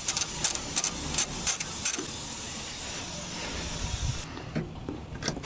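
A 10 mm socket wrench ratcheting on a wiper-arm nut: a run of short sharp metal clicks, about three a second, that stops after about two seconds. A steady hiss underneath cuts out about four seconds in.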